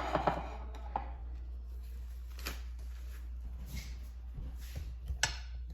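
Scattered kitchen handling noises: a few sharp clicks and knocks over a steady low hum.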